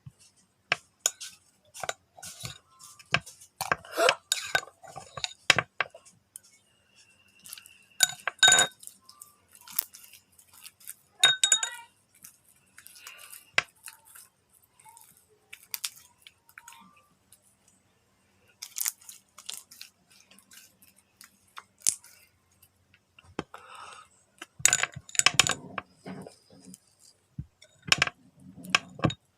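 Irregular clinks and knocks of utensils against dishes, a few of them ringing briefly.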